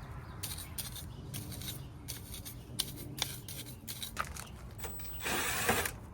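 Tools clicking and scraping against the metal housing of an air-conditioning condenser unit, with a short, louder rasping burst about five seconds in.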